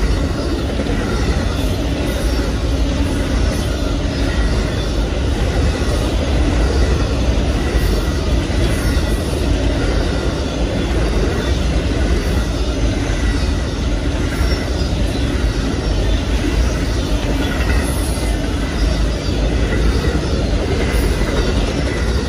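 Freight train cars rolling past, a steady loud rumble of steel wheels on rail.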